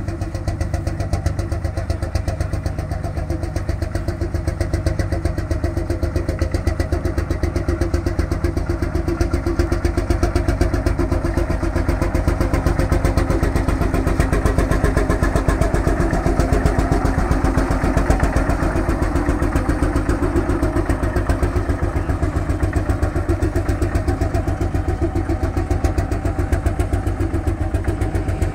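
Hofherr vintage tractor engine running as the tractor drives slowly, its exhaust beating out a rapid, even rhythm of pulses. The beat swells a little in the middle and steadies again.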